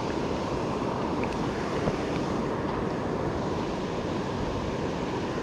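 Shallow river current rushing steadily around the wader, heard close to the microphone.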